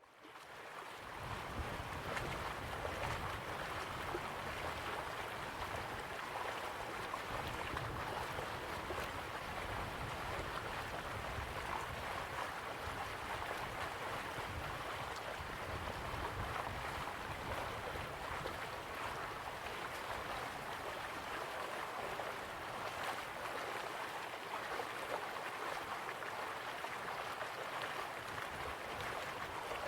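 Steady rushing of flowing water, an even wash of noise that fades in over the first second or two and then holds.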